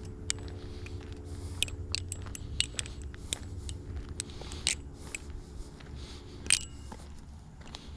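Balisong (butterfly knife) being flipped: irregular sharp metallic clicks and clacks as the handles swing and strike each other, the loudest about six and a half seconds in, over a steady low hum.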